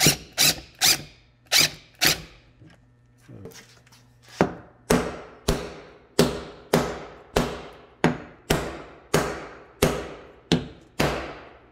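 A body hammer tapping down the high point around a dent in a car's rear quarter panel while a glue puller holds the dent under tension. There are five quick taps, a pause of about two seconds, then a steady run of about a dozen taps a little under two a second, each with a short ring.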